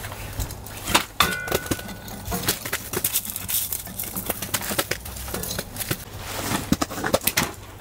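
Thin split kindling sticks knocking and clattering against each other and the metal firebox as they are stacked into a wood-burning stove, a run of irregular wooden clicks and taps.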